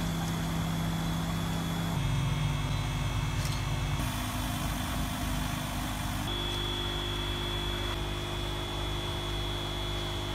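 Electric air pump aerating the crab tanks, running with a steady hum and a thin high whine. The pitch and mix of the hum change abruptly every couple of seconds.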